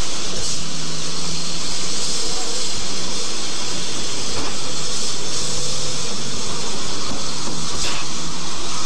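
A steady, loud hiss with a faint low hum that comes and goes and a few soft clicks.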